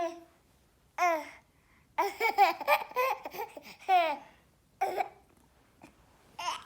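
A baby's high-pitched laughing and babbling in short bursts: a single falling squeal about a second in, a run of giggles from about two seconds, then more single squeals spaced about a second apart.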